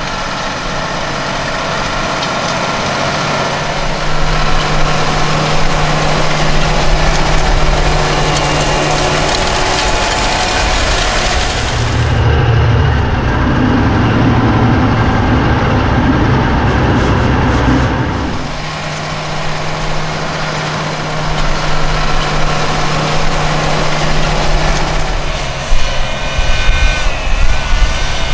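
John Deere 8370R tractor's diesel engine running steadily under load while pulling a seed drill. For several seconds in the middle it is heard up close and muffled, with a heavy low rumble.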